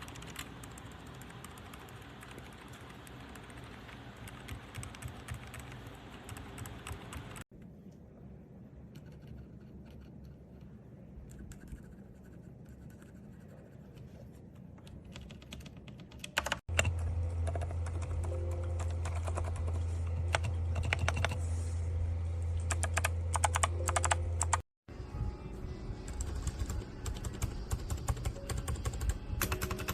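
Typing on a mechanical keyboard fitted with Outemu switches: a dense run of key clicks and clacks. It comes in several takes that cut off abruptly about 7, 17 and 25 seconds in, and the later takes are louder.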